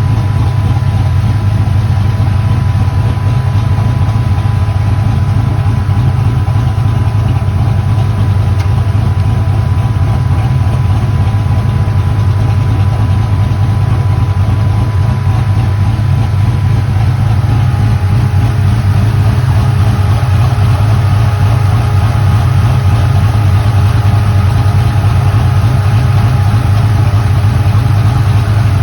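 An engine idling steadily, a loud, even low rumble with faint steady whining tones above it that shift slightly about two-thirds of the way through.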